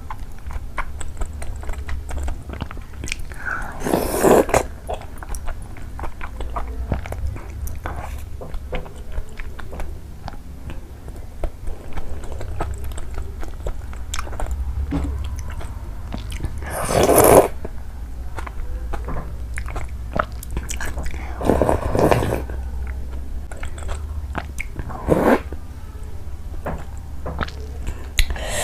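Close-miked eating of soft momos in a runny gravy: chewing and wet mouth sounds with many small clicks, and a few louder slurping sounds, the loudest about halfway through. A steady low hum runs underneath.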